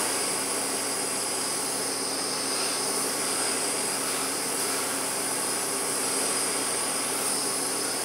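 Handheld butane torch burning with a steady hiss of its blue flame. It is heating solder onto the end of a throttle cable to form a new cable end.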